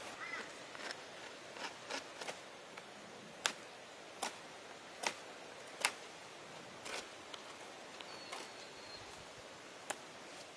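A hoof-trimming tool working a horse's hoof: short, sharp scraping strokes, irregular and roughly one a second.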